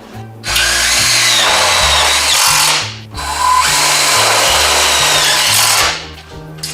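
Power drill driving screws into a sheet-metal floor pan: two runs of about two and a half seconds each, its motor whine dropping as each screw seats. Background music underneath.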